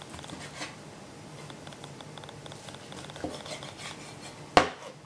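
A large kitchen knife cutting breast meat off a raw chicken carcass on a plastic cutting board: quiet scraping and small clicks, then one sharp knock near the end.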